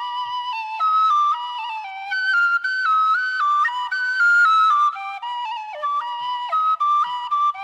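Bamboo flute playing a Khmer classical melody in short notes that step up and down, with quick ornaments between them. A second, lower part runs alongside the upper one.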